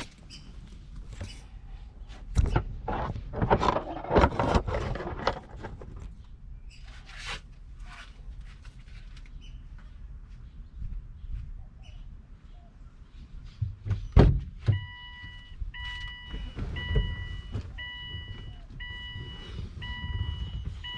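Rustling and knocks of handling in the car's cabin, then a sharp click about 14 seconds in, after which the Subaru Baja's warning chime beeps steadily about once a second.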